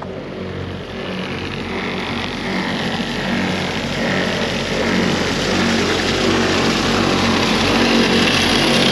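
Truck driving on the road, its engine running steadily under road noise that grows louder as it picks up speed.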